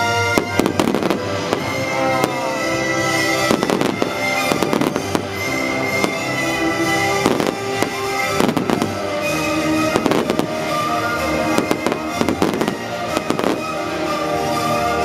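Fireworks display: aerial shells bursting in repeated bangs and crackles, coming in clusters every second or two, over music with long held notes.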